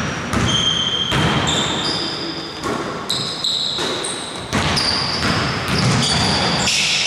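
Basketball dribbled on a hardwood court, bouncing about twice a second, with sneakers squeaking sharply on the floor in between, echoing in a large gym.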